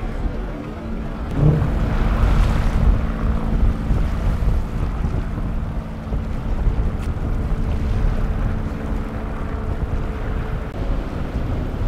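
Twin outboard motors of a center-console boat running at speed, with a rush of spray as the hull slams through a wave about two seconds in. Wind noise on the microphone.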